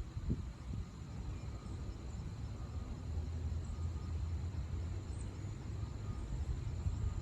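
A steady low rumble that grows fuller about two and a half seconds in and then holds, with a faint high whine above it.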